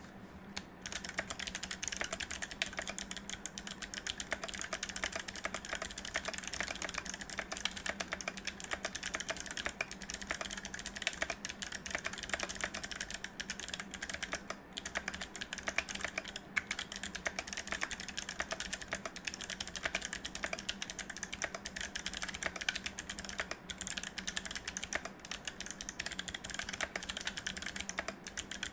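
Continuous typing on a mechanical keyboard with clicky Kailh Box Navy switches, mounted on a steel plate in an acrylic case and fitted with GMK keycaps. It makes a dense stream of sharp clicks that starts about a second in.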